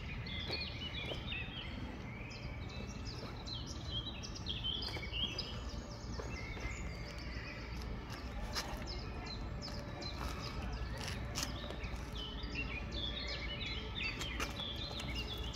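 Small birds chirping and twittering in rapid short calls over a steady low rumble of outdoor background noise, with a few faint clicks.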